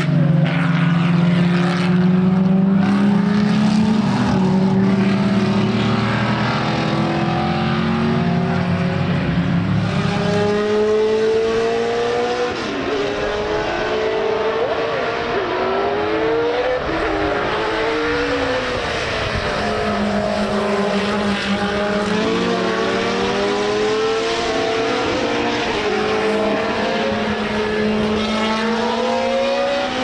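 Racing car engines on track at full throttle, several at once, their notes climbing in pitch through the gears and dropping as cars pass. A steady, unchanging engine note holds for about the first ten seconds and then stops.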